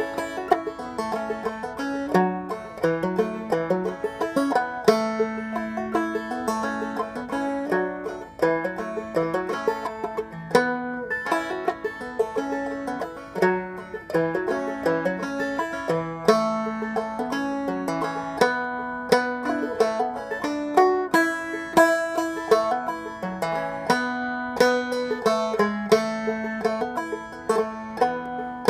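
A solo banjo played clawhammer style, picking out a slow old-time fiddle tune with a steady stream of plucked and brushed notes.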